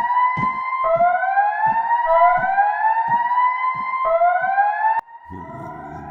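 Siren sound effect wailing in repeated rising whoops, with short low thumps between them. About five seconds in it cuts off abruptly and a quieter siren continues over a low rumble.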